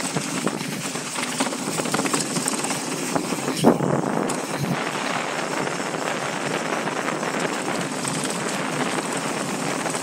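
Mountain bike descending a rough downhill trail: a steady rattle of the bike and its tyres over dirt and rock, with one hard knock a little over three and a half seconds in, the loudest moment.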